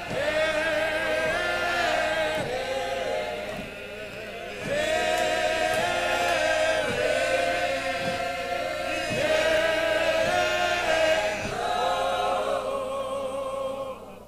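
Church choir of men's and women's voices singing a hymn a cappella, in slow, long-held notes. The phrase dies away near the end.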